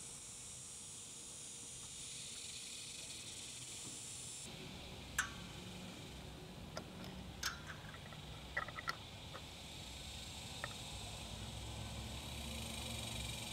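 Steady high background hiss. From about five seconds in come a handful of light, sharp clicks and taps as a plastic oil-filter mesh screen is pushed into the oil drain port of a Vespa LX engine case.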